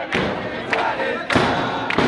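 A supporters' group chanting together in the stands, many voices singing over a steady drum beat of about one and a half hits a second.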